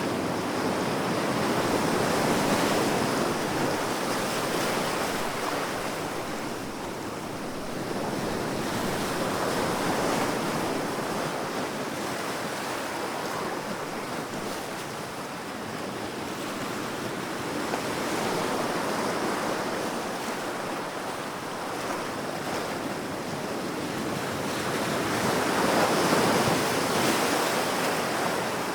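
Big ocean waves breaking on the shore: a continuous surf wash that swells and ebbs about every eight seconds, with the loudest wave near the end.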